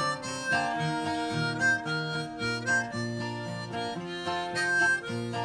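Harmonica playing the melody of a country-folk tune in an instrumental break, over acoustic guitar accompaniment.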